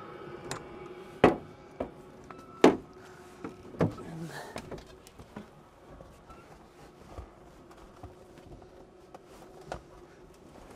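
A series of sharp clunks and knocks as a semi truck's cab door is opened and someone climbs in; the two loudest come about a second and a half apart near the start. A faint steady hum underneath fades out after a few seconds.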